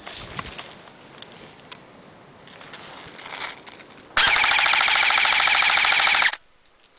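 Airsoft electric rifle firing one full-auto burst of about two seconds, very loud and close, with a fast, even rattle that cuts off sharply. It is preceded by a few faint clicks.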